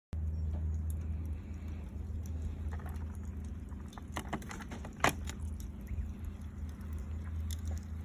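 Scattered small clicks and crackles, one sharper click about five seconds in, over a steady low rumble.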